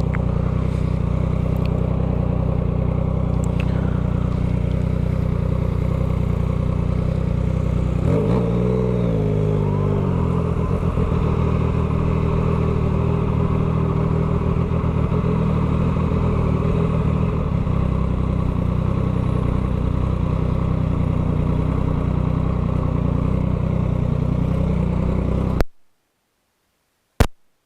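Yamaha MT-09's 890 cc three-cylinder CP3 engine idling steadily through a full 3-into-1 Atalla exhaust with no silencer, with a brief swell in pitch about eight seconds in. The sound cuts off suddenly near the end, followed by a single click.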